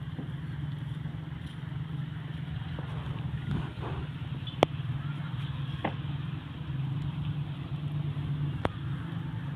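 A steady low engine hum, with a few sharp clicks over it.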